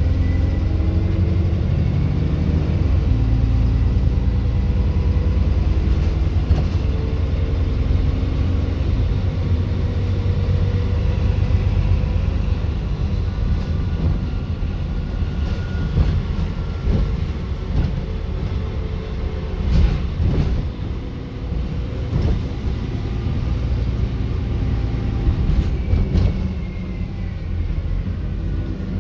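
Dennis Enviro 400 double-decker bus driving, its diesel engine and road rumble running continuously with the engine note slowly rising and falling. A few short knocks and rattles, the loudest about two-thirds of the way through.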